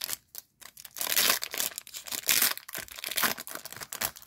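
A trading card pack's wrapper being torn open and crinkled by hand, in irregular bursts of crackling.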